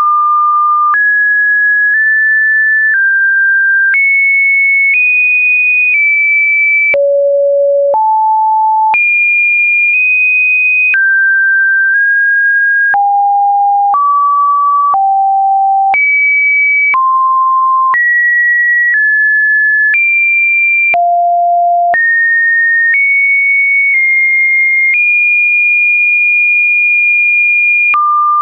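A pure electronic test tone jumping to a new pitch about once a second, ranging from a middle to a high pitch, with a faint click at each jump. Near the end one pitch holds for about three seconds.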